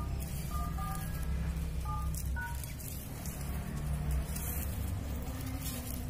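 About five short electronic beeps, each two tones sounding together, in the first two and a half seconds, over a steady low rumble.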